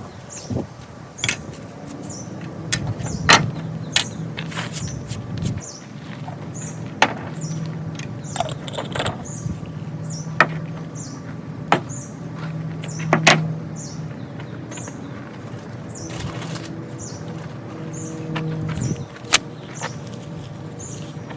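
Newspaper tinder bundle crackling and popping irregularly as it burns, lit from a charred punk wood ember. A bird chirps over and over in the background.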